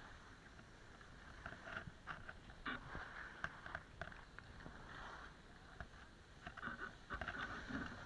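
Skis scraping and swishing over packed snow on a downhill run, faint and uneven, with short grating bursts as the edges bite.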